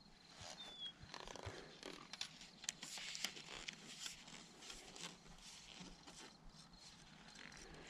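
Faint rustling and scattered light clicks, irregular rather than rhythmic, from a fishing rod and spinning reel being handled close to the microphone.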